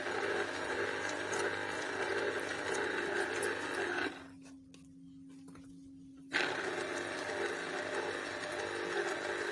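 Electric citrus juicer running as lemons are pressed onto its reamer, a steady motor whirr. It stops about four seconds in, leaving only a faint hum, and starts again about two seconds later as the next fruit is pressed.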